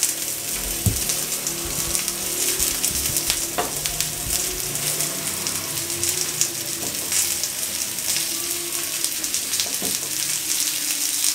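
Chicken seekh kababs sizzling on a preheated sizzler platter over sliced onions and oil: a steady crackling hiss, with a few light knocks.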